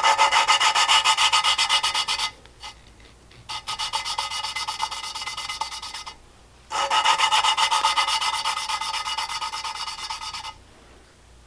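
A pitted engine valve being hand-lapped into its cast-iron cylinder-head seat with coarse lapping compound, the lapping stick spun rapidly back and forth between the palms. It makes a rough, rasping grind in three bouts of quick strokes. Each short pause is where the valve is lifted and turned before grinding resumes.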